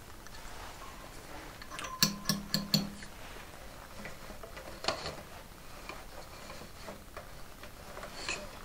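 Four quick, sharp wooden taps about two seconds in and a single tap near the middle: a wooden weaving fork knocking against the warp and frame of a Cactus Flower loom during weaving. Soft rustling of weft yarn being drawn through the warp threads runs between the taps.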